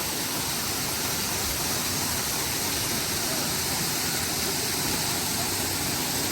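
Waterfall rushing: a steady roar of falling water.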